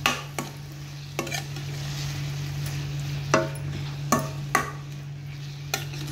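Spoon stirring chopped capsicum and onion frying in oil in a stainless steel pan, mixing in the spices, with a steady sizzle and irregular sharp clicks and scrapes of the spoon against the pan about once a second. A steady low hum runs underneath.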